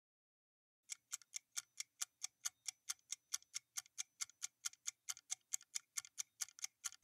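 Countdown timer sound effect of clock-like ticking, about four and a half ticks a second, starting about a second in: the quiz's answer-time countdown.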